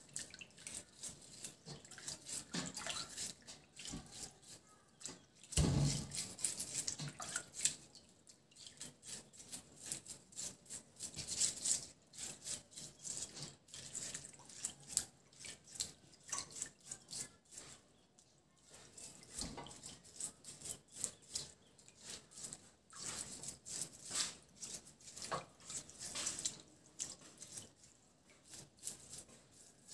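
Fresh turmeric roots being scrubbed by hand and with a small brush in a metal basin of water: faint, irregular small splashes, drips and scrapes.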